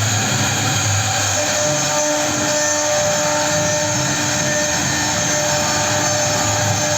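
CNC router cutting a ceiling jali panel: a steady, high spindle whine over the hiss of the cutting, running on unbroken.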